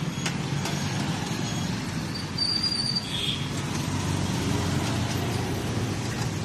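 Steady rumble of road traffic mixed with bread pakodas sizzling in a kadhai of hot oil, with a few faint clicks of the ladle. A brief high-pitched tone sounds about two and a half seconds in.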